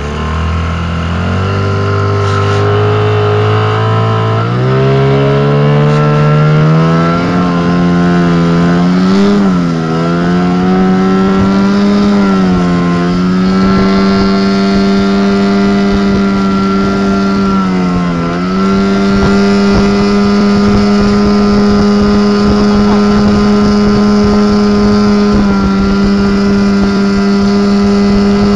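Johnson 15 hp outboard motor opened up, its pitch climbing steadily over the first seven seconds as the inflatable boat picks up speed, then running at speed with three brief dips in pitch, over the rush of wake and wind.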